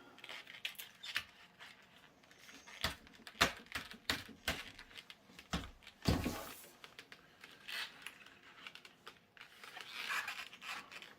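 A furnace filter being pushed and worked into a tight fit on a box fan: irregular clicks, knocks and scraping rustles, with a longer scrape about six seconds in.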